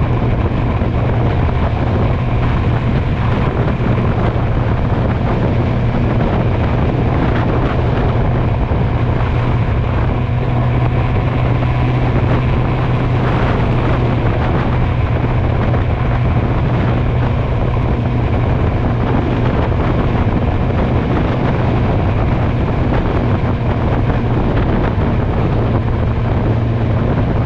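Motorcycle engine running at a steady cruising speed, a constant low drone, with wind rushing over the microphone.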